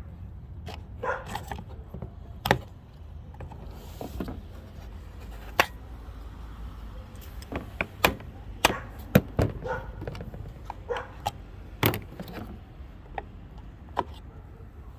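Hand tools knocking and clicking in sharp, irregular strokes while prying loose an old fog light bracket whose mounting screw has broken off.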